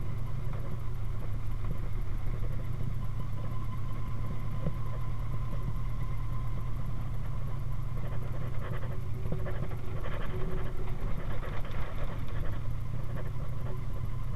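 1931 Ford Model A-based speedster's four-cylinder engine running steadily as the car drives slowly, heard from aboard the open car.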